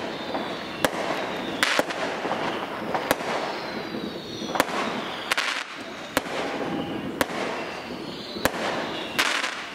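Fireworks going off: about nine sharp bangs, roughly one a second, over a continuous crackle, with faint falling whistles now and then.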